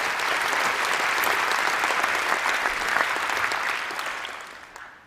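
Audience applauding, dying away over the last second.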